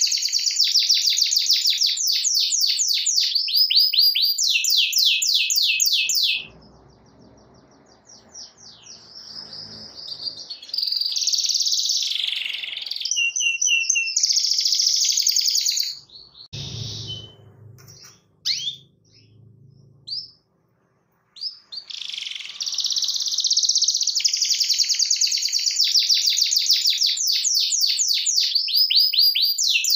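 Domestic canary singing: long, very fast rolling trills, breaking off about six seconds in for softer scattered phrases and a brief near-silent pause, then resuming with long rolls near the end.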